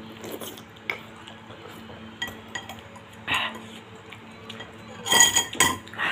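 Metal fork and spoon clinking and scraping against a bowl of noodles: a few light taps, then a louder cluster of ringing clinks about five seconds in.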